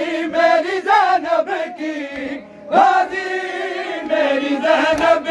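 Men's voices chanting a Shia noha lament, unaccompanied, in long sung phrases with a short breath about halfway through before a strong new phrase. A couple of sharp thumps come near the end.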